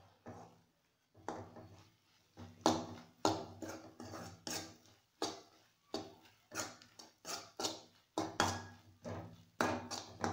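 A metal fork scraping and stirring sugar-coated peanuts around an aluminium kadai, with the peanuts clattering against the pan in rough strokes about one and a half times a second, while the sugar caramelizes onto the nuts.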